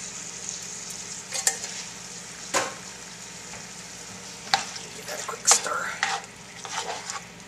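Ground beef and tomato sauce sizzling steadily in a skillet, with a couple of sharp knocks as canned corn is tipped in from the can. A little past halfway, a slotted spoon starts stirring and scraping the pan.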